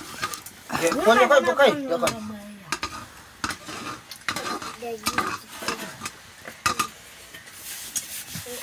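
Metal utensil clinking and scraping in a cooking pot while food is stirred, in a run of sharp clicks. A brief wavering voice-like call sounds about a second in.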